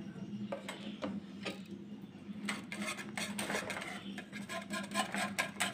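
Wire whisk stirring hot milk and cocoa in an aluminium saucepan: a few separate knocks, then from about halfway through rapid, busy clicking of the whisk's wires against the pan.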